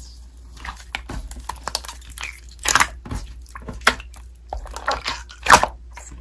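Slime being squeezed and pressed by hand, with irregular crackles and wet pops, two louder ones nearly three seconds and about five and a half seconds in.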